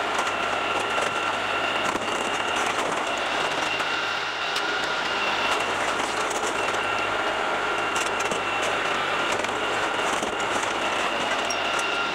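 LS compact tractor's diesel engine running steadily under load as its front-loader grapple works, with a steady high whine and scattered light cracks and clicks.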